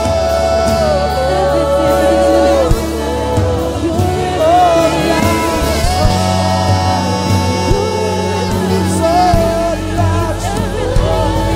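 Live worship band music with singing: drum kit and cymbals, bass and keyboards under long held melodic lines.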